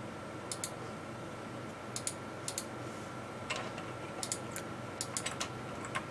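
Short clicks of a computer mouse and keyboard, often in pairs, coming every half second or so over a faint steady hum.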